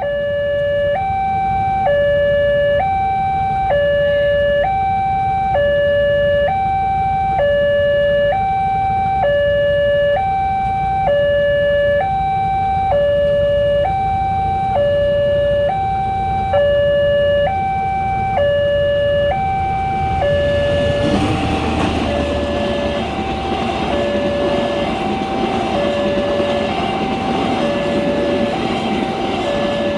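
Old electronic warning siren at a railway level crossing, alternating without a break between a short high tone and a longer low tone, the cycle repeating every two seconds. About two-thirds of the way through, the rumble of an approaching train rises under it.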